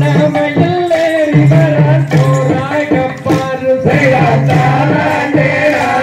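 Tamil folk song accompanying a valli kummi dance: a singing voice over a steady, rhythmic percussion beat.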